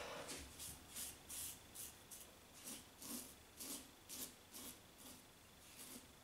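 Double-edge safety razor scraping through stubble on a lathered face in short, quick strokes, about two a second.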